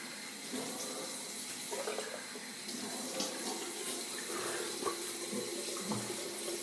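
Tap running water steadily into a bathroom sink, with small irregular splashes as the face is rinsed with cold water after a shave.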